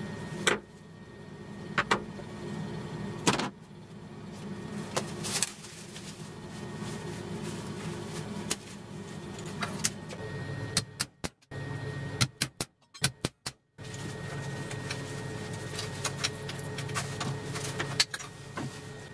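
Scattered clicks and knocks of an umbrella and its broken plastic hook handle being handled on a wooden workbench, over a steady low hum with a faint high whine. Near the end, a sharp knock as the broken handle is struck against a steel bench vise.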